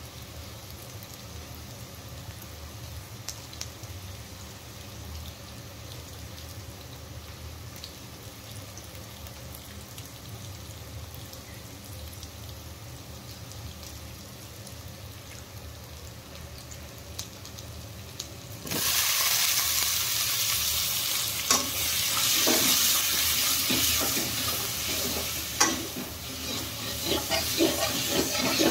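Potatoes frying gently in oil over a low steady hum; about two-thirds of the way through, a loud sizzle starts suddenly as cauliflower goes into the hot oil. Near the end a metal slotted spatula scrapes and stirs the vegetables in the pan.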